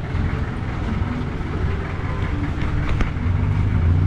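Jeepney diesel engine idling, a steady low rumble, with a single sharp click about three seconds in.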